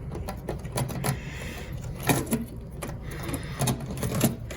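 Irregular clicks and knocks of hard parts being handled, with a short scrape about a second in, as the main circuit board goes back into the filtration unit's cabinet, over a low steady hum.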